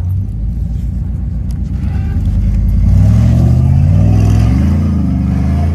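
Off-road vehicle's engine running, growing louder and rising in pitch about three seconds in, then wavering up and down as the throttle is worked.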